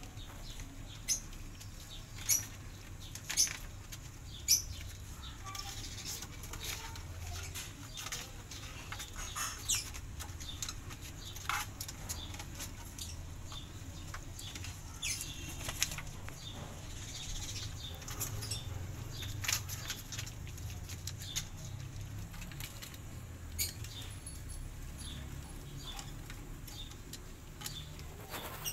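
Kittens scrambling about on a plastic sheet and a plastic crate: an irregular crinkling rustle with scattered sharp clicks and taps of claws and paws on plastic, over a low steady rumble.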